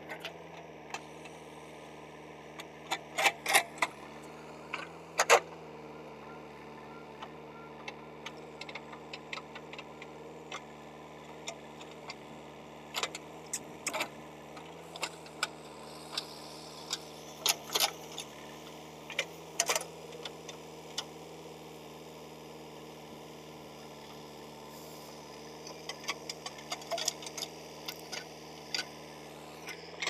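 JCB 3DX backhoe loader's diesel engine running steadily while the backhoe digs, with bursts of sharp clanks and rattles from the bucket and boom, loudest a few seconds in and again around the middle.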